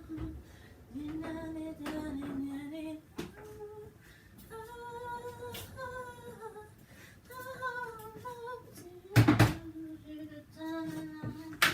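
A woman humming a wordless tune, in held notes that slide up and down. It is broken by a loud knock about nine seconds in and another near the end.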